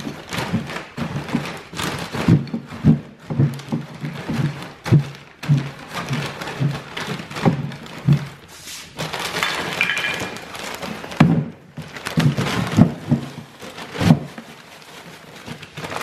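Irregular dull thuds, roughly one or two a second, of a steel tool jabbing into dried-out, partly frozen potting soil inside a plastic bag to break up the clumps, with the bag rustling in between.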